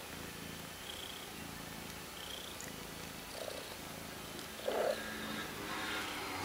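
Steady purring from a calico mother cat as she nurses her three-week-old kittens, with two brief squeaks about three and a half and five seconds in.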